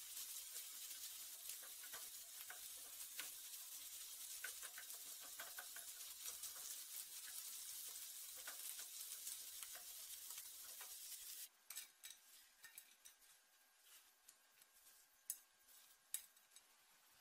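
Food sizzling in hot oil in a pan, with clicks of a utensil stirring it. The sizzle cuts off suddenly about eleven seconds in, leaving a few scattered clicks, two of them sharp, near the end.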